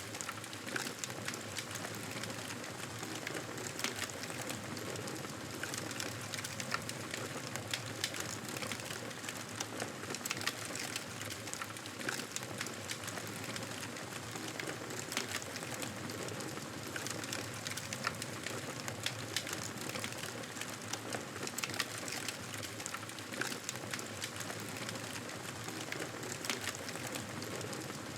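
Wood fire crackling steadily: a continuous soft hiss dotted with frequent sharp pops and snaps.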